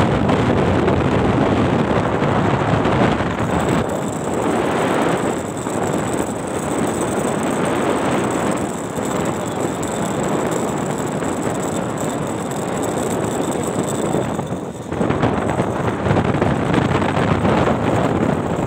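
Wind buffeting the microphone of a phone carried on a moving ride: a loud, even rushing noise that surges and eases, with a short lull about fifteen seconds in.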